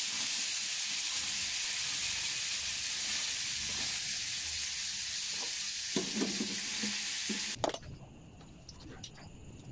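Frozen mixed vegetables sizzling in hot oil in a steel frying pan, a steady hiss. The sizzle cuts off suddenly about three-quarters of the way through, leaving it much quieter with a few faint clicks.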